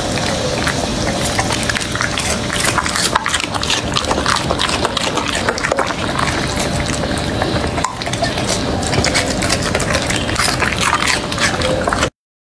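Labrador retriever chewing and slurping a soft, ripe bitter melon: wet smacking and lip-licking with many quick crisp clicks. The eating sounds stop abruptly near the end.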